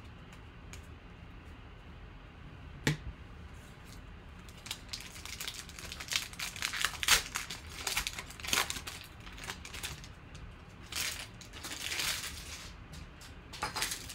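Foil wrapper of a football trading-card pack crinkling and tearing as it is opened by hand, in bursts from about five seconds in and again near the end. A single sharp tap comes about three seconds in.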